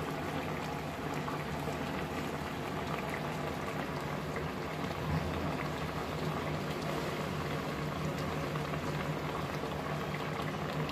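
Fish curry broth boiling in a metal pot: a steady bubbling with small scattered pops.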